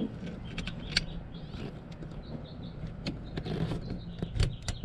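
Scattered light clicks and taps from hands fitting a carburetor and its mounting parts onto a small motorcycle engine's intake manifold, over a steady low hum.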